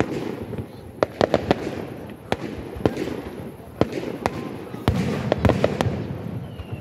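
Aerial fireworks display: a string of sharp bangs and cracks from bursting shells, a dozen or so, irregularly spaced, over a continuous low rumble of more distant explosions.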